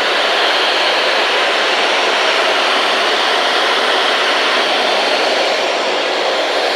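A loud, steady hiss with no tones or breaks.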